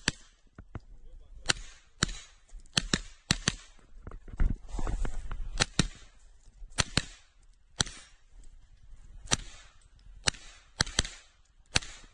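Grand Power Stribog SR9A2 9mm pistol-caliber carbine firing a fast course of fire: sharp shots, mostly in quick pairs, a pair every second or so, with short gaps between groups.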